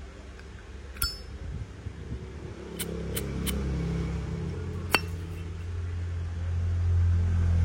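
Zippo lighter handled in the hand: sharp metal clinks and clicks, one about a second in, three in quick succession around three seconds, and one more near five seconds, over a low rumble that grows toward the end.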